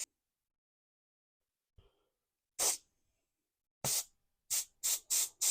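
Compressed-air blow gun shooting short bursts of air into a brake caliper's port to force the piston out of its bore. There is one burst about two and a half seconds in, then a quick run of short bursts about three a second near the end.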